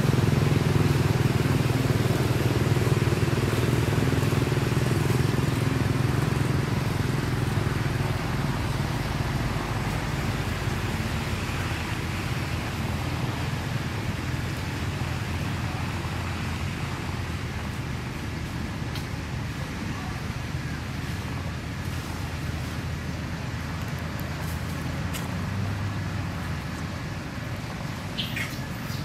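A low, steady motor-vehicle engine rumble that slowly fades over the first ten seconds or so, with a short high chirp near the end.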